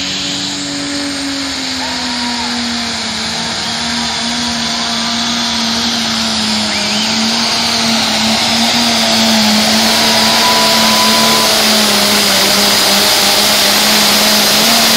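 Pulling tractor 'Pro-Fox' running flat out under load as it drags the sled down the track: one steady, high engine note under a loud rushing noise. It gets louder through the first half as the tractor comes nearer.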